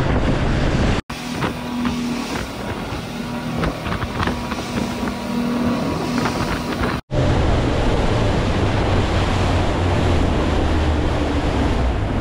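Outboard-powered center-console fishing boat running at speed: engine drone under rushing spray and wind on the microphone. The sound cuts out abruptly about a second in and again about seven seconds in; between the cuts it is a steadier hum with scattered clicks.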